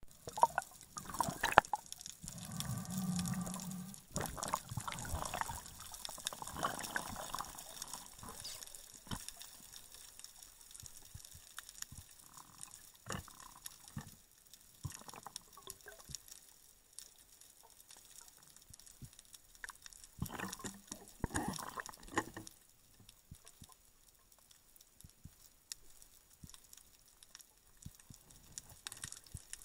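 Underwater sound heard through an action camera's waterproof housing while freediving: muffled water movement with scattered sharp clicks and knocks. A short, low droning tone sounds about two seconds in.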